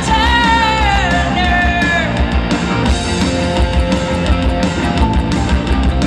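Live rock band playing loudly: electric guitar and electric bass, with sharp percussive hits throughout. A long wavering note slides downward over the first two seconds.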